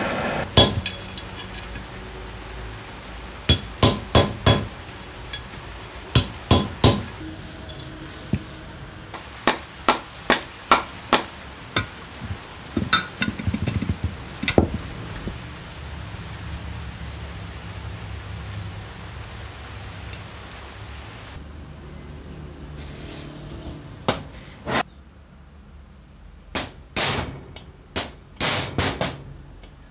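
A hammer striking a steel socket and punch to drive out parts of an old electric groove cutter. The blows are sharp and metallic and come in quick groups of two to four. There is a pause of several seconds past the middle, then another run of blows near the end.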